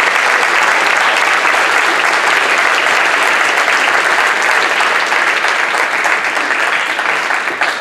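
Audience applauding, loud and steady, starting to die down near the end.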